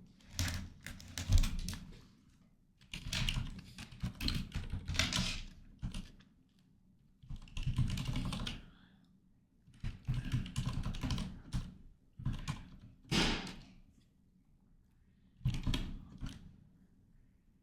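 Typing on a computer keyboard in bursts of a second or two with short pauses between, about six bursts in all.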